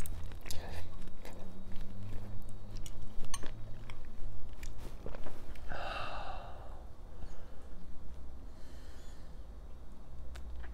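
Close-miked chewing of a mouthful of ramen noodles, with wet mouth clicks throughout. A short, breathy huff comes about six seconds in.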